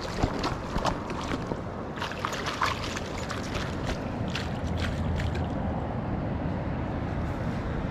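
Steady rush of a flowing river, with scattered short, sharp sounds over the first five seconds or so.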